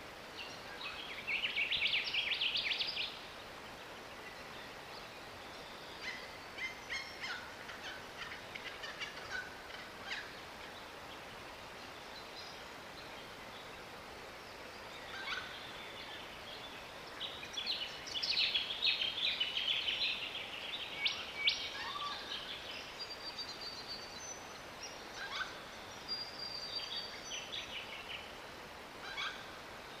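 Cicadabird calling: two rapid, buzzy trills, one about a second in and a longer one around eighteen seconds in. Shorter scattered chirps and a few thin high whistles fall between them.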